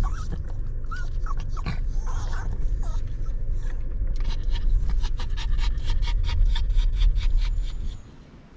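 A dog whimpering with a few short high squeaks, then panting fast, about five breaths a second, over a steady low rumble that drops away near the end.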